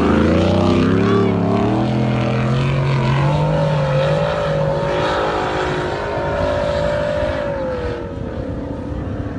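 Off-road 4x4's engine running hard under load, its pitch climbing over the first few seconds and then held at high revs, easing off slightly near the end.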